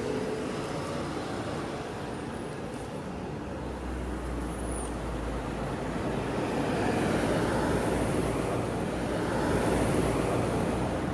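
Street traffic: cars driving past close by with a low rumble and tyre hiss, swelling louder about two-thirds of the way through as a vehicle passes.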